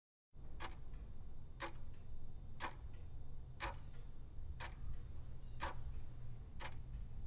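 Clock-ticking sound effect, one sharp tick a second, counting down the time left to answer a quiz question, over a steady low hum; it starts about a third of a second in.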